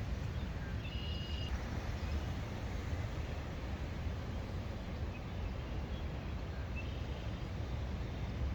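Steady outdoor background noise with a low rumble, and two short bird chirps, one about a second in and a fainter one near seven seconds.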